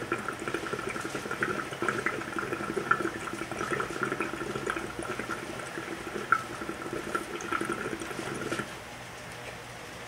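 Glass dab rig bubbling steadily as a dab is drawn through its water, a gurgle full of quick little pops that stops abruptly about eight and a half seconds in.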